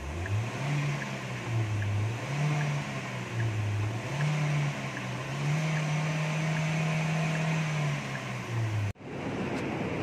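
2015 Ford EcoSport engine being revved in park, its note rising and falling several times, then held high for a couple of seconds before dropping back. The engine is misfiring with the check engine light on. After a sudden break near the end it is heard running steadily.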